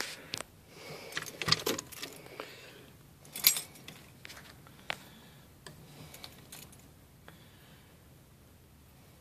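A bunch of keys on a key ring jingling and clicking, with scattered knocks and rustles. The sounds thin out after about seven seconds.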